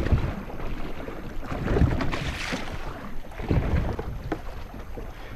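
Wind buffeting the microphone and water slapping against the hull of a small anchored boat, in uneven gusts with no engine running.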